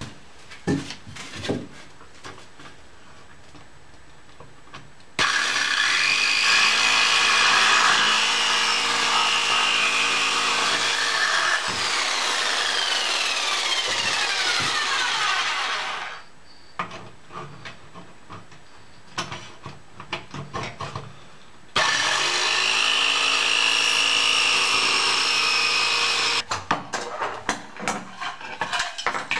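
Electric jigsaw cutting through the thin sheet-metal wall of a camping stove to enlarge its feeding hole, in two runs of about eleven and four seconds, with knocks and clatter from handling the stove between and after them.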